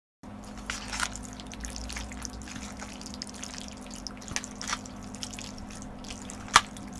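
Close-miked eating of jjajang noodles in black bean sauce: wet slurps and mouth smacks in irregular short bursts, with one sharp click about six and a half seconds in. A steady low hum runs underneath.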